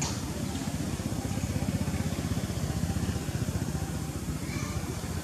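A motor engine running steadily: a low, pulsing rumble.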